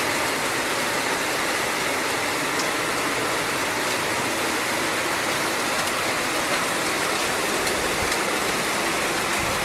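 Heavy rain falling: a steady, even hiss of water.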